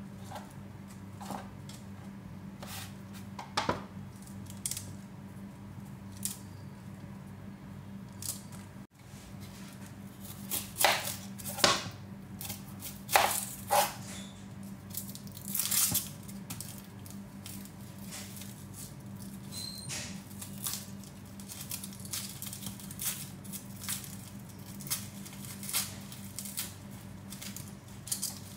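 Food preparation on a plastic cutting board: scattered knife taps and clicks as long beans are handled and a red onion is peeled and trimmed, over a steady low hum.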